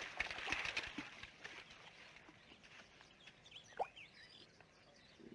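Faint outdoor ambience on an old film soundtrack: hissy rustling and small clicks, then a few short falling chirps near the middle.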